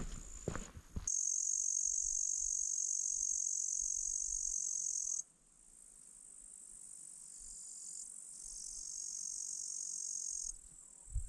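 Insects stridulating in meadow grass: a steady high-pitched buzz that drops away sharply about five seconds in, then comes back and builds slowly. Footsteps in the first second, and a brief thump at the very end.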